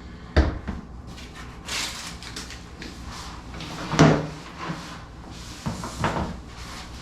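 A few hard knocks and clunks with some scraping in between, as parts and tools are handled and set down. The loudest clunk, about four seconds in, rings briefly.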